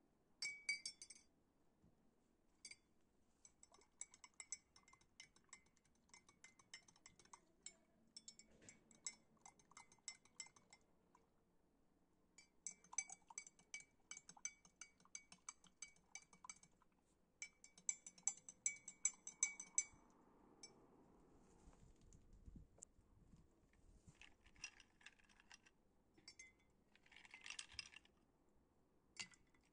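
A spoon stirring honey into hibiscus tea in glass mugs, clinking rapidly against the glass in runs of a few seconds with short pauses, each clink ringing briefly.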